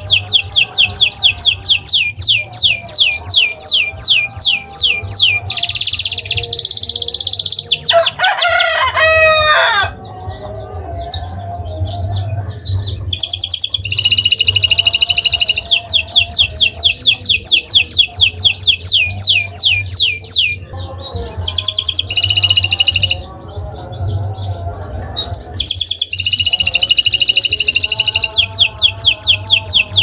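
Domestic canary singing: long, fast trills of quick repeated high sweeps, broken by short pauses and changes of phrase. About eight seconds in, a lower, harsher call with falling glides cuts in for about two seconds.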